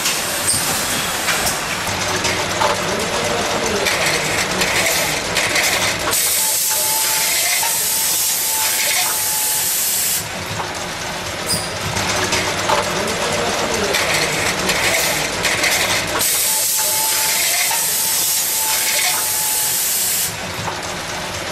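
Chocolate cream cup-filling machine running with a steady mechanical clatter. A loud hiss comes in twice, about ten seconds apart, lasting about four seconds each time.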